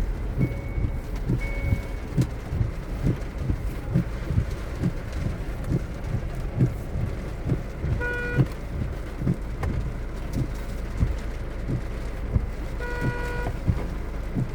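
Roadside traffic in the rain: a vehicle's reversing beeps about once a second during the first two seconds, under a steady low rumble with irregular low thumps. Two short horn blasts come about eight and thirteen seconds in.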